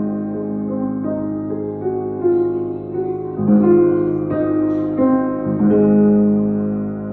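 Slow piano music, with held chords and new notes struck every half second to a second.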